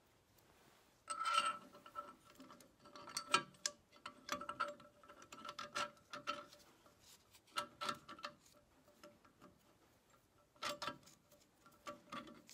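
Metal parts of a Massey Ferguson 35 hydraulic lift cover's control linkage clicking and clinking as they are fitted by hand, each knock carrying a short metallic ring. The clicks come in irregular clusters starting about a second in, pause briefly, and a few more come near the end.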